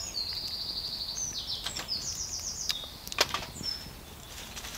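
A small woodland songbird singing a quick song of rapid trills that jump between several high pitches, with a few short sharp clicks of wood.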